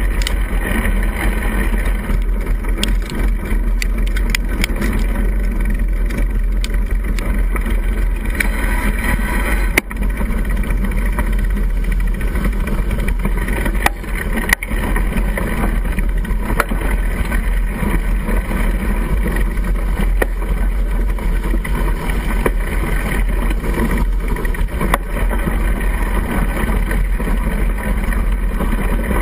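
Steady gurgling noise picked up by a GoPro mounted on a mountain bike's frame while riding in the rain, with a low rumble underneath. A couple of sharp knocks stand out about ten and fifteen seconds in.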